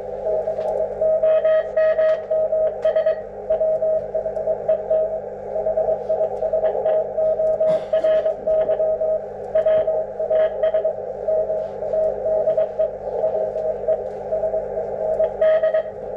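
Morse code on an HF radio: a single steady tone of about 650 Hz keyed on and off in dots and dashes over a narrow band of receiver hiss, with scattered faint clicks.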